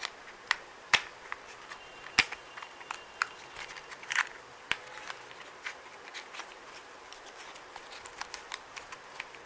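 Small cardboard cosmetic boxes and a plastic lip-gloss tube being handled: irregular clicks, taps and light rustles. The sharpest clicks come about one and two seconds in, with softer ticks scattered after.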